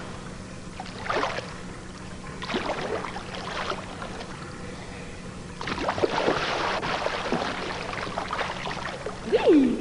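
Pool water splashing and sloshing as swimmers move and kick, in uneven surges that are loudest from about six seconds in, when a leg is lifted up out of the water.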